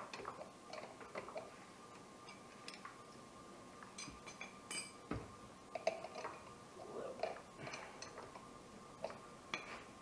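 Faint, irregular metallic clicks and taps from a wrench working the lock nut and adjuster bolt of a Camso X4S track's tension adjustment.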